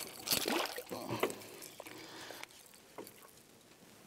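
Irregular splashes and knocks as a hooked borboleta peacock bass thrashes at the boat's side and is landed, loudest in the first second or so.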